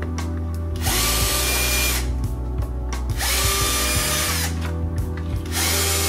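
12-volt cordless drill with a small bit drilling out plastic rivets in a washing-machine door ring. It runs in three short bursts of about a second each, spinning up at the start of each, with pauses between. Background music runs underneath.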